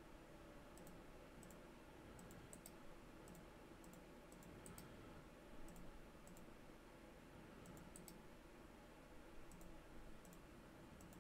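Faint computer mouse clicks, irregular and some in quick pairs, as path nodes are placed one by one with the Bezier tool, over a low steady room hum.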